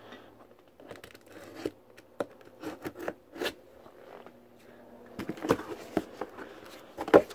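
Scissors slicing through packing tape on a cardboard box, then the cardboard flaps being pulled and folded open with scrapes and sharp rustles. It gets busier about five seconds in, with the loudest snap near the end.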